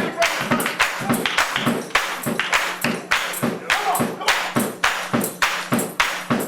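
Live gospel music, driven by a fast, even beat of sharp percussion strikes.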